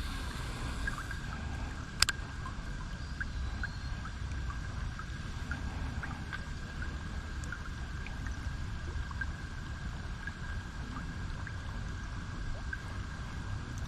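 River water ambience with a low wind rumble on the microphone, heard from a kayak; one sharp click about two seconds in, and a faint steady high whine throughout.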